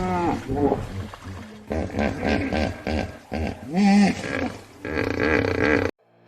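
Hippopotamus calling: a run of short, pulsing honking grunts, with a louder call that rises and falls about four seconds in. It cuts off abruptly near the end.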